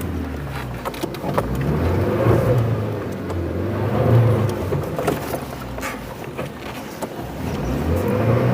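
The 2.2-litre engine of a Leopard Black King Kong 4WD SUV revving up and easing off several times under load while driving on slippery, muddy ground. Scattered short knocks and clicks sound over the engine.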